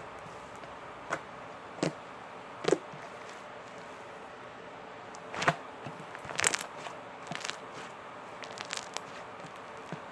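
Soft slime being squeezed and poked by hand: scattered short wet squishes and pops, irregular and a second or more apart, with a small cluster a little past the middle, over a faint steady hiss.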